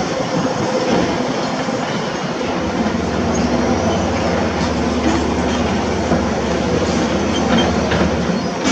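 Heavy construction machinery at work: a diesel engine running steadily under load, with a deeper hum setting in a few seconds in and a few metallic knocks near the end.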